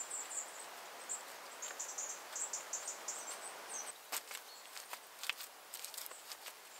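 Wet straw-and-clay daub being worked by hand onto a woven wattle wall: a soft smearing rustle, then several sharp slaps from about four seconds in as handfuls are pressed on. A high insect chirping runs through the first half.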